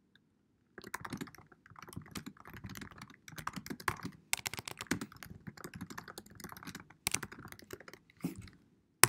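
Typing on a computer keyboard: a quick, uneven run of key clicks starting about a second in as a short message is typed, ending with one louder, sharper key press.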